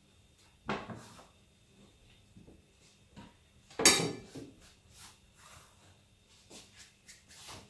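Knife and wooden chopping board knocking and scraping as chopped bitter leaf is gathered up by hand: a knock about a second in, a louder one about four seconds in, and light taps and rustles between.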